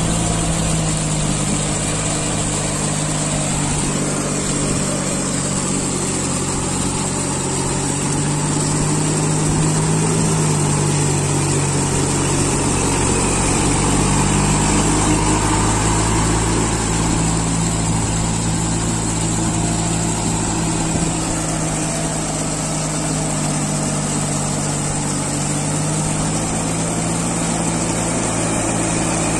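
New Holland four-wheel-drive tractor's diesel engine running steadily at low revs, its speed drifting up slightly in the middle and settling back down.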